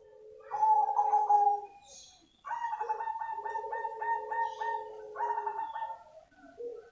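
Zebra dove, the black 'cemani' form of the perkutut, cooing. A short phrase comes about half a second in, then after a pause a longer phrase of quick rolling notes.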